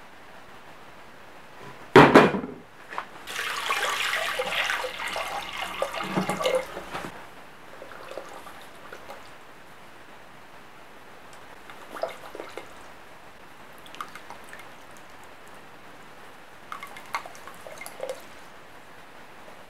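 A solid plaster-filled test piece drops into a bucket of water with a loud splash about two seconds in, followed by several seconds of water sloshing. Later come a few faint small clicks and taps.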